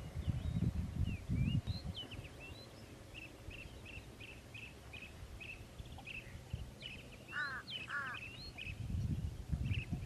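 Birds calling: a run of short high chirps repeated about three times a second, with two lower, harsher calls about half a second apart late on. Low irregular rumbling noise sits underneath near the start and end.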